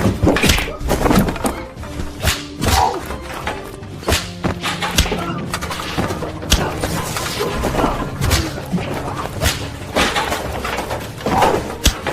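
Staged fight sound effects: a string of blows and thuds, with crashes and something breaking, over tense background music.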